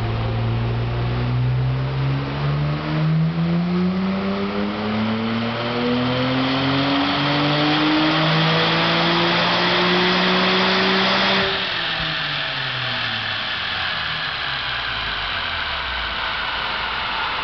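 Nissan Skyline R34 GT-R's twin-turbo RB26 straight-six, breathing through a Z-Tune turbo-back exhaust, under full load on a chassis dyno: the engine note climbs steadily through the rev range for about eleven seconds, then the throttle shuts and the revs fall away as the car coasts down on the rollers.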